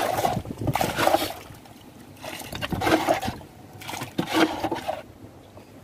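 Water splashing and sloshing in about four bursts, roughly a second apart, as the catch of prawns and fish is scooped up with water.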